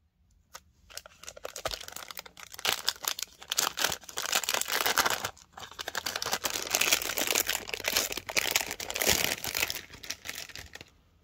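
Thin clear plastic bag crinkling and rustling as a guitar effects pedal is handled and slid out of it: dense crackling with a brief pause about halfway, stopping near the end.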